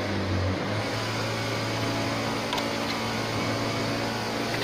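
Steady low mechanical hum of a running motor, with a couple of faint metallic clicks from hydraulic hose quick couplers being handled.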